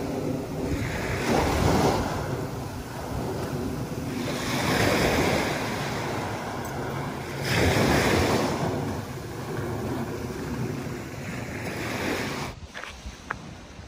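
Small waves washing up a sand-and-pebble saltwater beach, swelling and easing every few seconds, with wind on the microphone. Near the end the surf cuts off abruptly to a quieter background with a few light taps.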